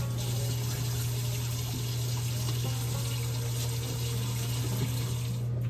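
Kitchen tap running into a sink while hands are washed; the water comes on at the start and shuts off shortly before the end.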